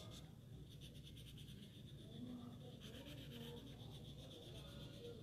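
Faint scratching of a felt-tip sketch pen on paper in quick, even back-and-forth strokes, colouring in a light green background; the strokes die down early on and pick up again about three seconds in.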